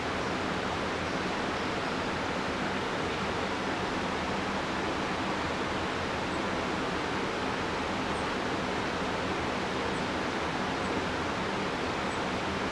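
Steady, even rush of a river, with no bird calls standing out.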